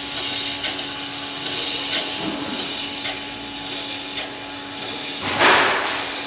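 Toy steam engine running: a steady hum with light ticking, and a short loud hiss of steam about five and a half seconds in.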